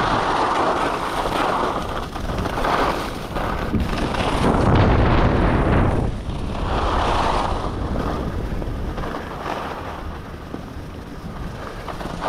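Skis hissing and scraping over groomed snow through a series of turns, mixed with wind buffeting an action camera's microphone. The noise swells and fades with each turn and is loudest about five seconds in.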